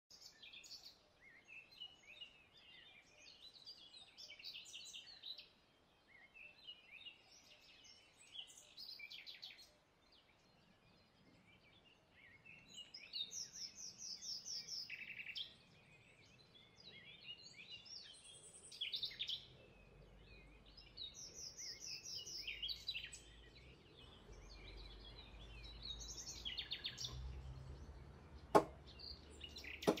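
Birds chirping on and off, with two sharp knife chops on a wooden chopping board near the end.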